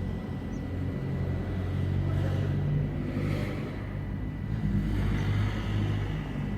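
Low, steady rumble of a motor vehicle, swelling louder as it passes about three seconds in and again near five seconds.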